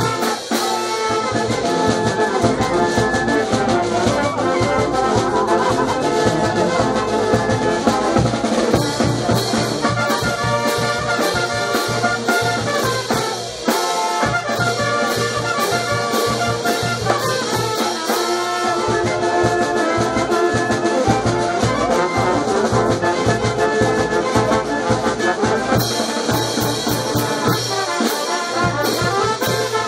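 A Peruvian banda orquesta, a brass band, playing a tune: trumpets and trombones over a steady drum beat.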